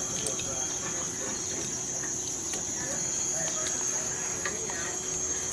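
Steady high-pitched insect trill of crickets, with a few faint clicks scattered through it.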